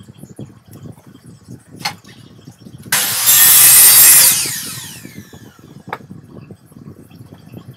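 Homemade grinding machine run briefly. About three seconds in a loud rushing noise starts suddenly and holds for about a second and a half, then fades with a falling pitch as the machine spins down. A few sharp clicks come before and after it.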